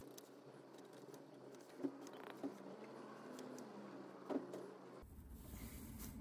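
Faint taps and scrapes of a shrink-wrapped visco fuse against the inside of a small glass jar as primer powder is scooped into the tube; a few soft clicks, three a little louder than the rest.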